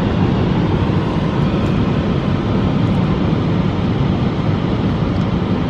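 Wesumat rollover car wash's contouring blower dryer blowing air over the car, heard from inside the cabin as a loud, steady rush of air.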